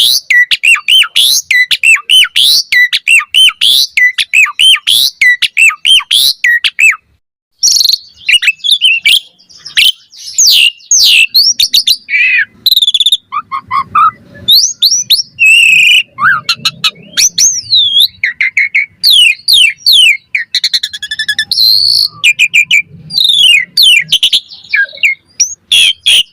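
Asian pied starling (jalak suren) singing energetically. It opens with a fast run of repeated chirping notes, several a second. After a short break about seven seconds in, it moves into a varied stream of whistles, slurred rising and falling notes and harsher calls.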